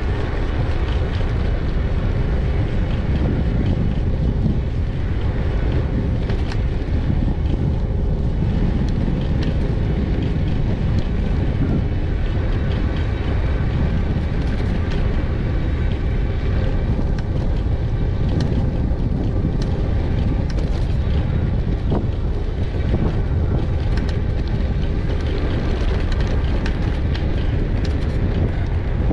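Wind rumbling steadily on a GoPro Hero 8's microphone during an e-bike ride, with faint steady tones above it and occasional small clicks and rattles.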